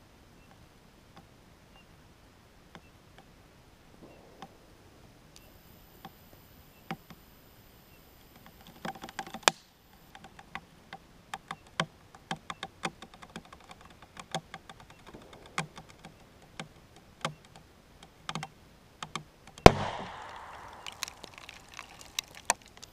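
Small plastic water bottle sealed with dry ice inside, its plastic ticking and crackling more and more often as the gas pressure builds. About twenty seconds in comes one sharp pop as the cap blows off, followed by a brief hiss of escaping carbon dioxide and a few light clicks.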